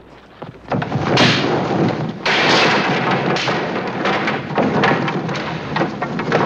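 Wooden covered wagon collapsing: its wheels give way and the body crashes to the ground in a series of loud crashes and thuds, starting about a second in.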